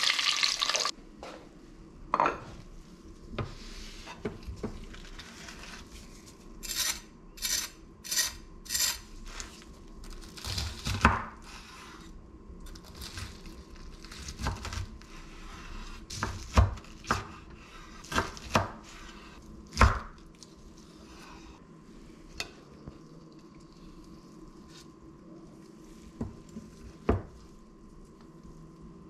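Chicken frying in hot oil for about the first second, then cut off. After that a chef's knife cuts through the crispy fried crust on a wooden board: a run of about five crunching strokes, then scattered knocks of the blade on the board, over a faint steady hum.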